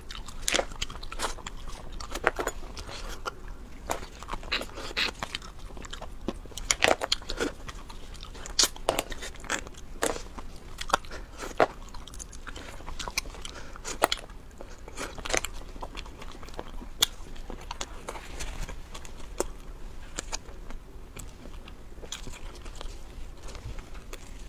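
Close-up eating of boiled crayfish: biting, crunching and chewing, with many sharp, irregular clicks, thickest in the first half.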